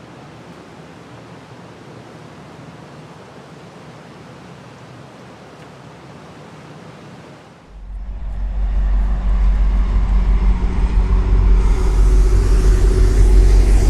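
Swollen creek rushing steadily. About eight seconds in, it gives way abruptly to an approaching GO Transit diesel commuter train: a deep rumble with a steady engine tone that grows louder, with a high hiss joining near the end.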